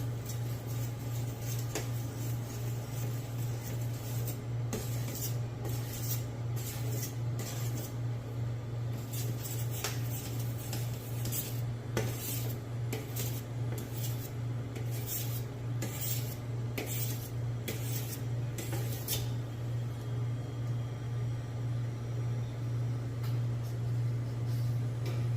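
Steel machete blade being sharpened: a run of short rubbing strokes, roughly two a second, over a steady low hum. The strokes come in from about four seconds in and stop after about nineteen seconds.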